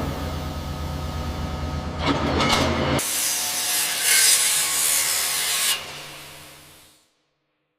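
Engine running with a low steady drone. About three seconds in it cuts off abruptly, replaced by a loud harsh hiss that fades away to silence.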